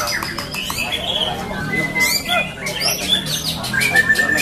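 White-rumped shama (murai batu) singing a fast, varied run of rising and falling whistles, a few held notes and sharp clicking notes, the phrases dense and overlapping.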